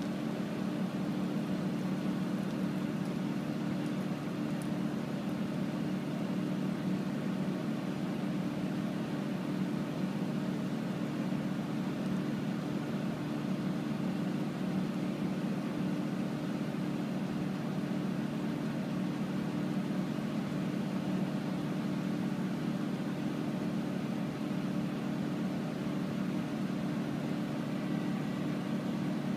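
Heavy hi-rail work vehicle's engine running at a steady speed, a constant low drone that does not change, while the rotary dump body is turned to the side to unload.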